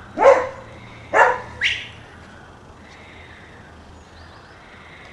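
A beagle barks three times in quick succession within the first two seconds, the first bark the loudest.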